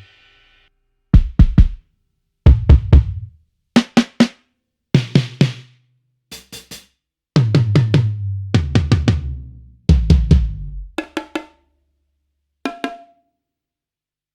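Sampled acoustic drum kit from the EZdrummer 3 'In the Pocket' EZX library, played as a string of short fills and groups of a few hits (kick, snare and toms) separated by brief silences. A single lighter hit comes near the end.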